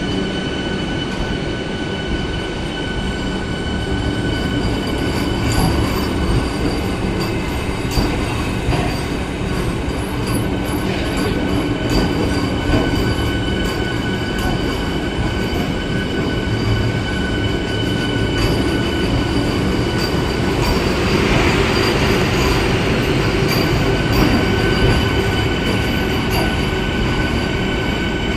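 Vande Bharat Express electric multiple-unit train rolling slowly out of the station past the platform. Its wheels rumble over the track with scattered clicks, under a steady high whine.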